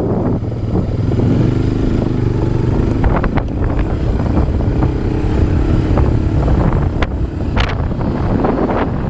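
Quad (ATV) engine running at a steady pace on a dirt trail, with wind rumbling on the microphone and a few sharp knocks and rattles.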